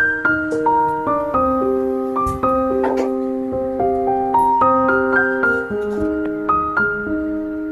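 Background piano music: a simple melody of struck notes over held chords, a new note every half second or so.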